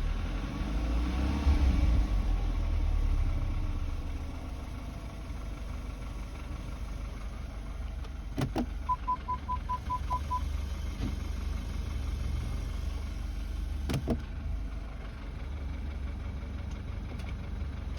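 BMW F30 328i's drivetrain with a steady low rumble, and in the first few seconds a whine that rises and falls in pitch: the strange gearbox noise that appears after long driving. About nine seconds in comes a quick run of about seven short electronic beeps, and there are two sharp clicks, one just before the beeps and one near fourteen seconds.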